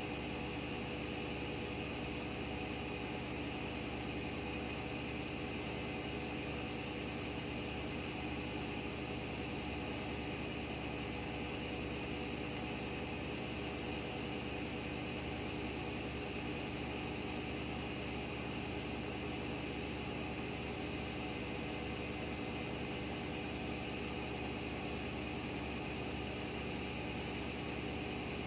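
Washing machine running with a steady, unchanging whir and hum.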